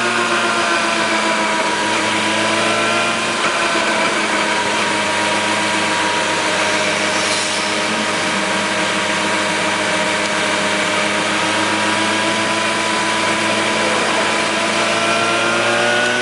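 Motorcycle engine running at a steady cruising speed over a constant rush of wind and road noise. The engine note dips slightly a few seconds in and rises in pitch near the end.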